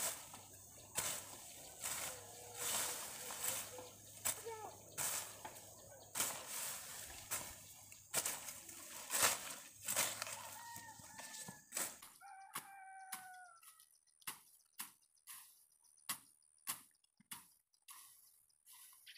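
Chickens clucking, with a rooster crowing briefly about twelve seconds in. Under them runs a string of sharp chopping knocks about once a second, which quicken to about two a second in the second half.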